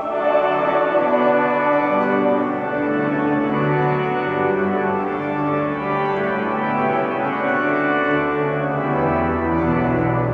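Church pipe organ playing slow sustained chords in a large stone abbey, with a deep bass note coming in near the end.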